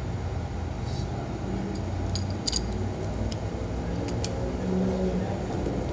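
Adjustable wrenches clinking against the oil catch can's metal hose fittings as the fittings are turned and tightened: a few light, scattered metallic clicks, the loudest about two and a half seconds in. A steady low hum runs underneath.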